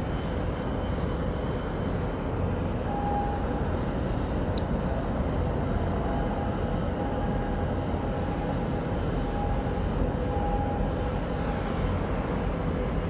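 Steady low rumble of a large container ship's engines and machinery as it passes close by, mixed with harbour ambience. A faint steady hum joins about three seconds in.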